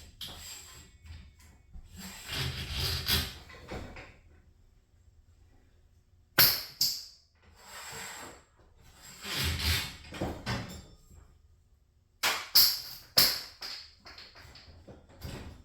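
Hands-on work noise: stretches of scraping and rustling broken by a few sharp clicks and knocks, in two clusters about six seconds apart.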